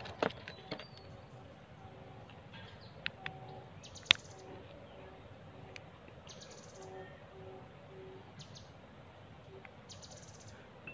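Faint clicks and plastic handling noises as the small action camera's battery door is worked open by hand, with one sharp click about four seconds in. Birds call faintly in the background.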